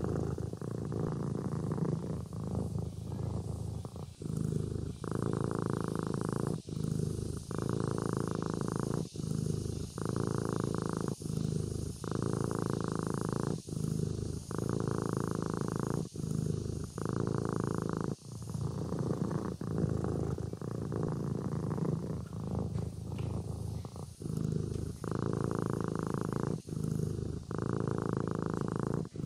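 Sleeping kitten purring steadily, the purr breaking off briefly about every second or two between breaths.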